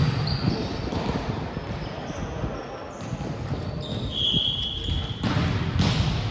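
Volleyball game noise on a hard gym floor: irregular thuds of the ball and footsteps, a couple of short high shoe squeaks, and background chatter.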